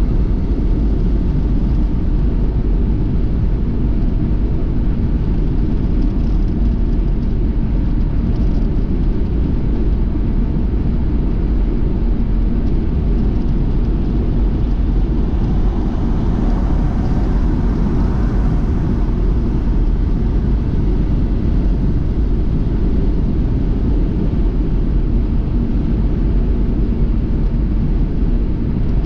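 A road vehicle driving: a steady low rumble of engine and road noise, with a brief swell in the middle.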